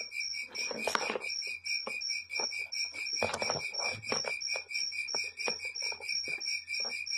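A cricket chirping steadily, about four short high chirps a second, over irregular scratching and clicking scuffles that are loudest about a second in and again around three to four seconds in.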